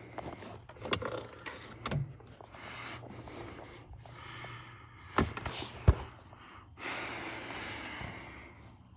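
Heavy breathing and gasps from someone straining at awkward work, with a few sharp metallic clicks and knocks as a parking brake cable is pushed and worked into place.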